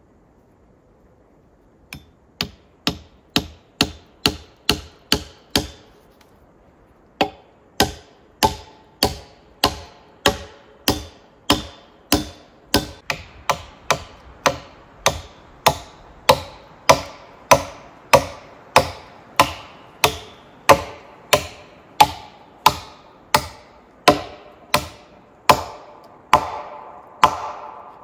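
Steady series of hard blows of a hand tool on the log crossbeam of a pole frame, about one and a half strikes a second, with a short pause a few seconds in. The blows grow louder later on, each leaving a brief ringing tone.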